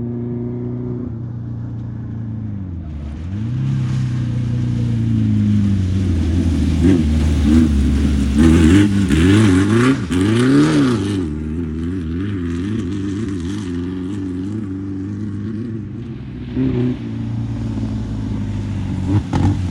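Off-road race vehicle engine revving hard, its pitch swinging rapidly up and down for several seconds in the middle over a rush of tyre and dirt noise. It then settles to a steadier, quieter run, with another short rev near the end.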